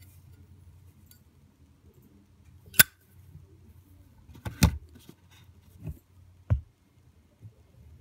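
Sharp metallic clicks and clacks from a Zippo 1941 Replica lighter being handled: the insert going back into the brushed-chrome case, the lid shutting and the lighter set down in its box. There are about four clicks, the loudest about three seconds in and a quick double clack a little after four seconds.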